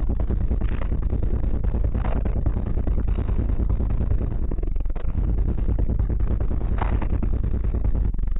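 An 18-inch Sundown Audio subwoofer playing music at very high volume: a heavy, steady, distorted bass rumble that overloads the microphone.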